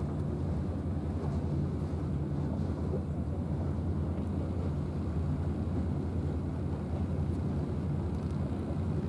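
Steady low outdoor rumble with a faint hum in it and no distinct events.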